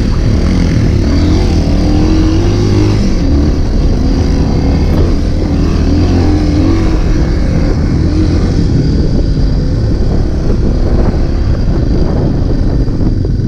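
Trail motorcycle engine running under way, its pitch rising and falling as the throttle opens and closes.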